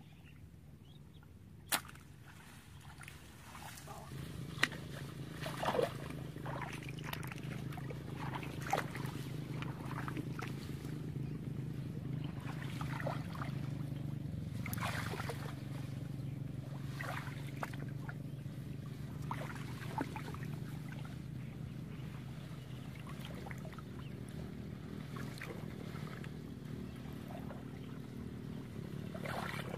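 Legs wading through shallow pond water: irregular small splashes and sloshes, over a steady low hum that comes in a few seconds in.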